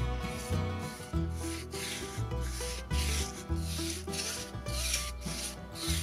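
A paintbrush stroking paint onto bare wooden boards: repeated dry, rasping swishes of the bristles against the wood. Background music with a steady bass line plays under it.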